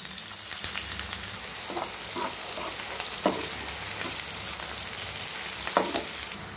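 Chopped onions and curry leaves sizzling in hot oil in a nonstick pan, with a spoon stirring and scraping the pan a few times.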